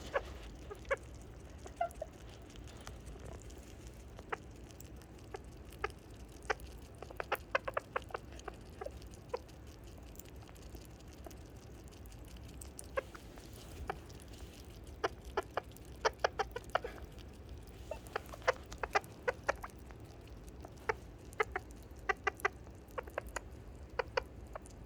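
Sugar glider chirping: short, sharp chirps in quick runs of several, with pauses between. This is the happy chirp of a contented glider.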